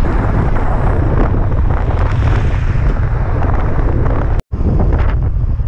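Heavy wind buffeting on a bicycle-mounted action camera's microphone while riding, a loud low rumble with hiss over it. It cuts out abruptly for a split second about four and a half seconds in, then resumes.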